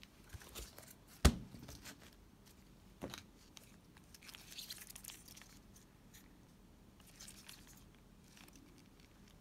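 Handling noise from gloved hands turning over a Shimano Calcutta 100XT baitcasting reel: glove rustle and small clicks, with a sharp knock about a second in and a smaller one about three seconds in.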